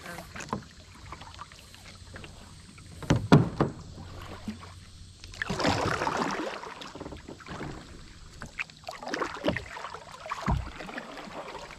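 Kayak paddling: paddle blades dipping and splashing in the water, with a swell of splashing about halfway through. A few sharp knocks around three seconds in are the loudest sounds.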